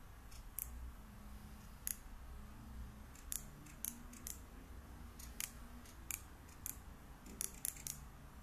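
Rotary selector ring of a Sofirn SD05 dive flashlight being turned, clicking through its detents: about a dozen sharp, light clicks at irregular intervals.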